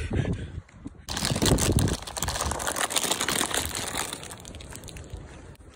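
Plastic cheese-puff bag crinkling as it is handled. The crackle starts about a second in and fades toward the end.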